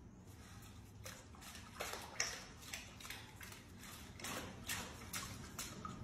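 Water splashing and sloshing in a tub as a giant anteater rolls and paddles in it: a string of irregular, short splashes.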